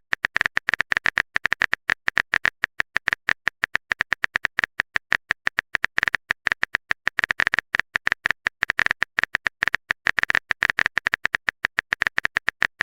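Typing sound effect: rapid, uneven clicks, several a second, without a break.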